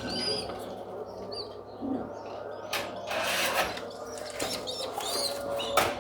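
Pigeons' wings flapping in a brief flurry about three seconds in, with short high chirps now and then.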